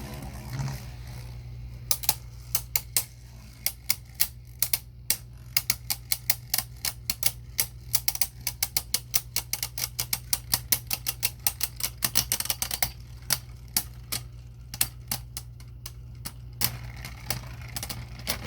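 Two spinning Beyblade Burst tops clashing in a plastic stadium: rapid, irregular clicks of their hard plastic rims striking, a few per second, over a steady low hum. The hits start about a second and a half in and fade out near the end as the battle ends with one top still spinning.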